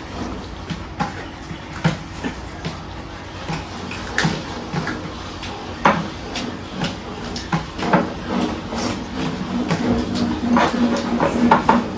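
Close-up eating sounds: irregular chewing and mouth smacking over curry and rice, with scattered sharp clicks.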